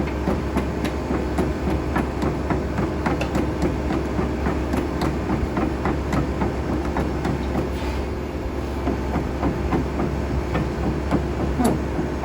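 Kobelco SK200SR hydraulic excavator running, its diesel engine giving a steady low hum under a continual clatter of irregular metallic clicks and clanks.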